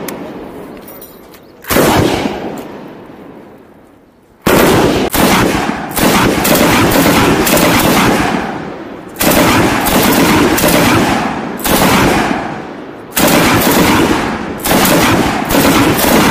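M240B 7.62 mm belt-fed machine gun firing short bursts, each with a long echoing tail. One burst comes about two seconds in, then after a pause a run of bursts follows one another closely from about four and a half seconds on.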